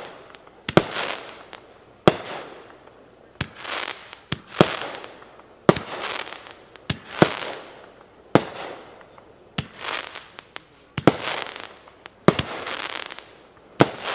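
Magnus Fireworks 'Neon Roots' 16-shot consumer fireworks cake firing shot after shot, about one every second and a quarter. Each shot is a sharp report followed by a fading hiss.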